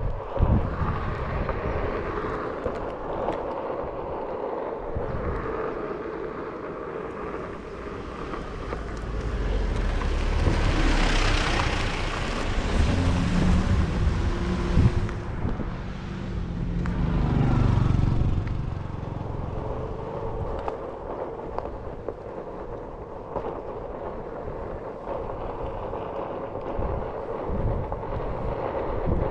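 Road and wind noise from riding a Onewheel electric board along a paved street: a steady rumble and hiss that swells louder about ten seconds in and again near the eighteen-second mark.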